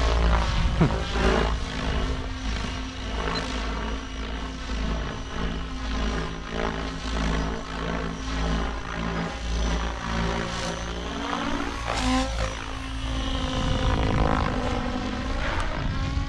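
An XLPower Specter 700 V2 electric radio-controlled helicopter flying aerobatics overhead, its rotor and motor giving a steady whine. Late on, the pitch sags and climbs back as it manoeuvres.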